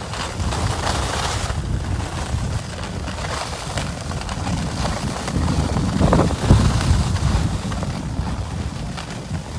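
Wind rumbling on the microphone of a moving skier, with skis hissing and scraping over tracked piste snow. It grows louder for a moment about six seconds in.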